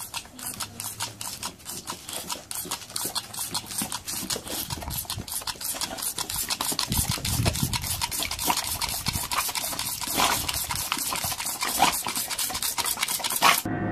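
A boxer dog snapping at the jet from a squirting toy water pistol: a quick run of wet clicks and spurts, about five a second, growing a little louder and cutting off suddenly near the end.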